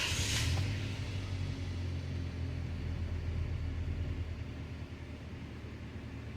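2011 Toyota Tacoma engine idling steadily, a low even hum, while it is being checked for a cylinder misfire. A brief rustle sounds at the very start.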